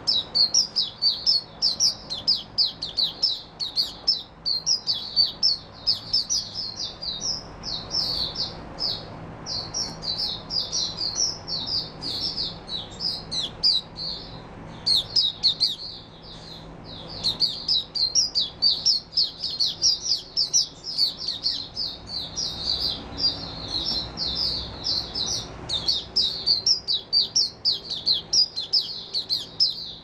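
White-eye (mata puteh) singing a long, fast, high-pitched twittering song of rapid chirps, with a couple of brief pauses about halfway through.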